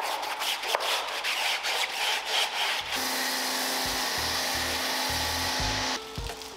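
Stiff detailing brush scrubbing in quick, repeated strokes. About three seconds in it gives way to a steady machine rush with a low hum, which cuts off suddenly near the end.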